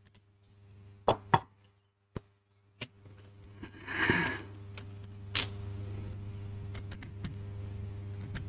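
Small hand-tool clicks and knocks as a screwdriver removes little Phillips screws from a car radio's metal housing, with a short scraping rattle about four seconds in. A steady low hum joins from about three seconds on.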